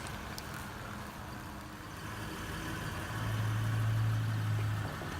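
Car engine running at low speed, its low hum growing louder for about two seconds past the middle.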